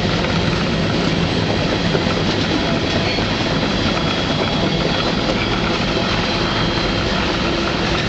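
Freight train rolling along, heard from aboard one of its cars: a steady, loud rumble of wheels and cars on the track, with a faint high whine held throughout.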